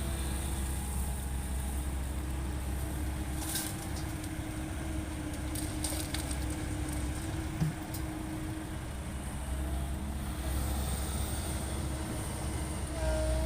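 Heavy diesel engines of an excavator and dump truck running steadily, with a few short clatters partway through.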